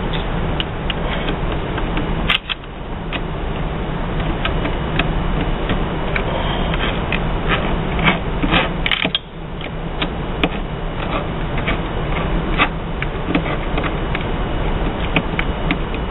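Small metal clicks and taps of a hex (Allen) wrench and cap screw being worked into the penny press's new cam and sprocket, scattered over a steady background hum.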